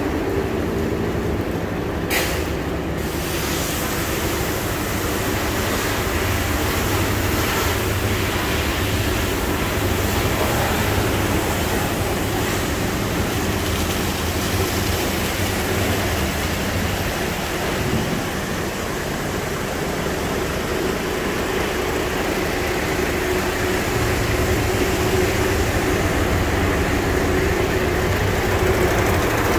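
Mercedes-Benz Actros 8x4 concrete mixer truck's diesel engine idling steadily, heard from close beside the truck. There is a short sharp click about two seconds in.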